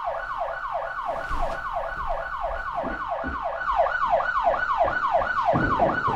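Home security system alarm siren going off, a rapid repeating falling wail of about four whoops a second, set off by someone entering the house while it is armed. A few low thumps sound under it midway and near the end.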